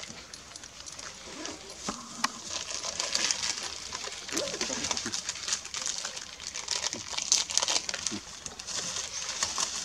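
Dry leaves crackling and rustling irregularly, with the crackles growing busier about three seconds in.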